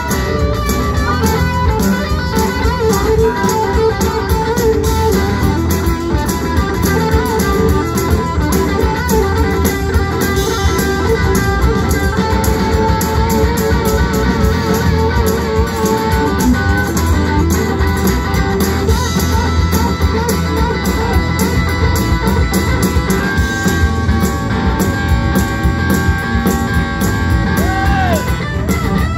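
Live rock band playing: electric guitar lead with bass and drums keeping a steady beat.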